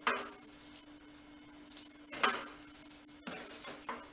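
Spatula stirring and scraping a thick millet and moong dal dough around a nonstick pan as it cooks on the stove, with three louder scrapes, the loudest a little after two seconds in, over a steady low hum.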